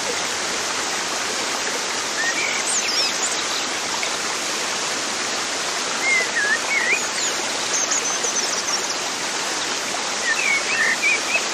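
Steady rush of running water, like a stream, with birds chirping briefly a few times: about three seconds in, again around six to eight seconds, and near the end.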